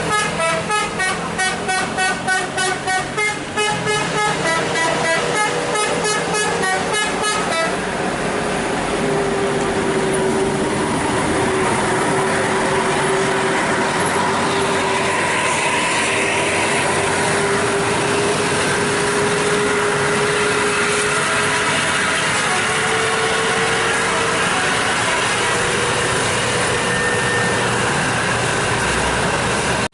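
A heavy vehicle's musical multi-tone 'telolet' horn playing a fast pulsing tune of high notes for about eight seconds. After that comes a steady droning engine with road noise.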